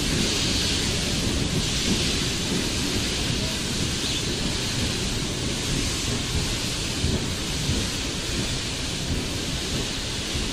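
Steady hiss of steam locomotives venting steam, over an irregular low rumble; the whole eases slightly toward the end.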